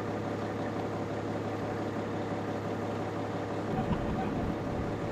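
Fire truck engine idling steadily, a constant low hum, with a brief low rumble about four seconds in.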